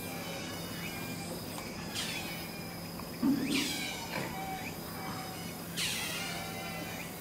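Animal calls: a high call falling in pitch, repeated about every two seconds. A short low sound about three seconds in is the loudest moment.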